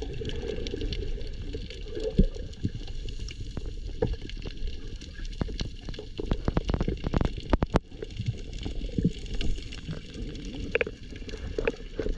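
Underwater ambience heard through a submerged camera as a freediver fins: a steady, muffled low rush of water with many scattered sharp clicks, thickest around the middle.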